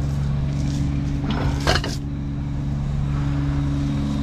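Truck engine idling steadily, with a brief clatter ending in a thump about a second and a half in.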